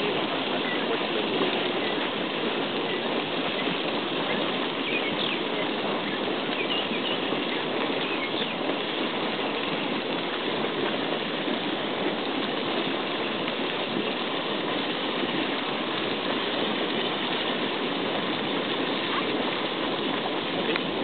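Hot-spring geyser spouting boiling water from a vent among rocks: a steady, unbroken rush of gushing water.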